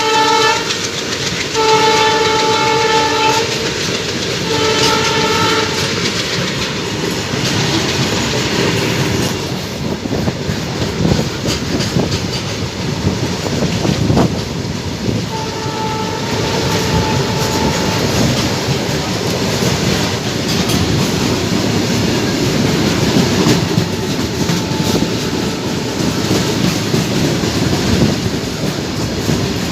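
WDG-3A diesel locomotive's air horn sounding three short blasts in the first six seconds, then a longer blast about fifteen seconds in. Between and after the blasts comes the steady rumble of the passing train's wheels on the rails.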